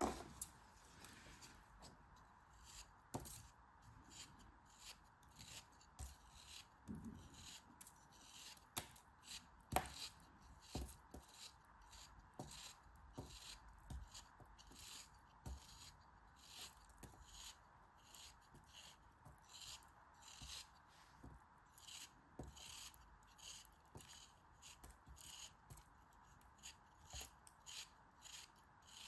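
Faint, crisp cutting and scraping strokes, about two a second, over a low steady hiss.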